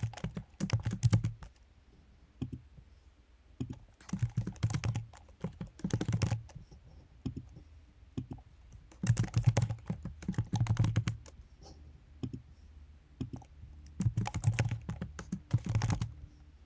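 Typing on a computer keyboard: about five short bursts of quick keystrokes with pauses between.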